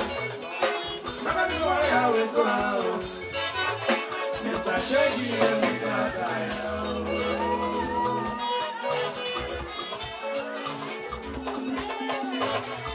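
Live band music: a man singing the lead into a microphone over guitar, bass and drums, with a steady beat.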